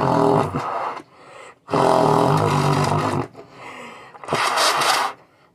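Trumpet blown with very low, rough buzzing notes that sound like a tuba or sousaphone, in three blasts, the last one shorter.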